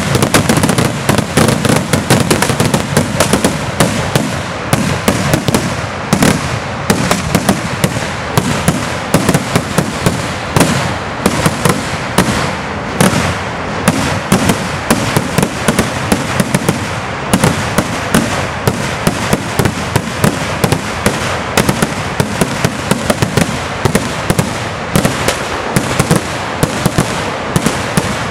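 A Kerala temple-festival fireworks display (vedikkettu): a dense, unbroken barrage of firecracker bangs and cracks, many a second.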